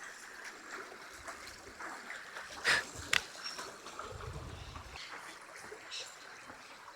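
Faint, steady rush of river water flowing over a crossing, with two brief sharp knocks about three seconds in.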